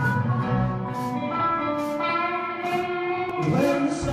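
Blues band playing an instrumental passage: hollow-body electric guitar over bass and drums, with cymbal strokes about once a second.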